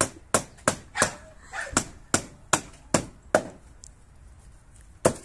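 Hammer driving nails into the wooden frame of a dog kennel: about nine sharp, evenly paced blows in the first three and a half seconds, then a pause and one last blow near the end.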